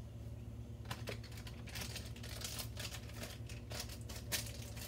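Crinkling and rustling of wound-dressing supplies being handled, starting about a second in as a dense run of short crackles, loudest near the end, over a steady low hum.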